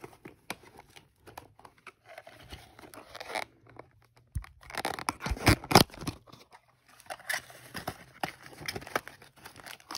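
Small cardboard blind box being opened by hand: scattered scrapes and rustles with the thin card tearing, and a louder cluster of tearing and rustling about halfway through.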